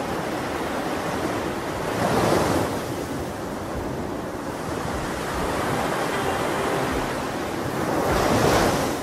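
Sea waves washing in a steady wash, surging and breaking twice, about two seconds in and near the end, with faint music tones entering in the second half.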